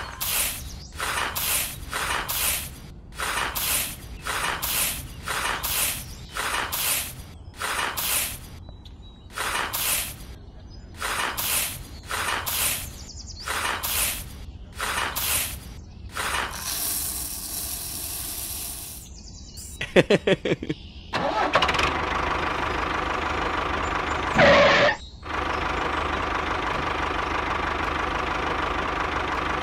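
A tiny metal shovel scrapes through dry rice grains in a plastic tray, a rustling scrape about once a second. Later, after a hiss and a quick run of clicks, an engine starts and runs steadily, with one short louder burst soon after it catches.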